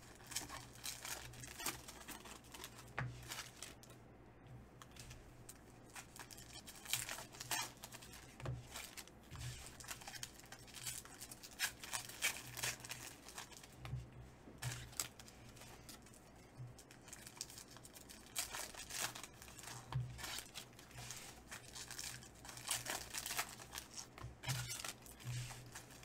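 Foil wrappers of Donruss basketball card packs crinkling and tearing as the packs are handled and ripped open: irregular crackling rustles, with louder rips every few seconds.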